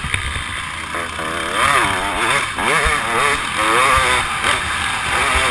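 Dirt bike engine revving up and down in repeated rising and falling swoops as the throttle is worked, with wind rumble on the microphone.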